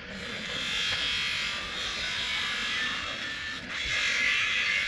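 A small electric tool, of the kind used to sand or polish a headlight lens, runs steadily in two spells with a short break about three and a half seconds in.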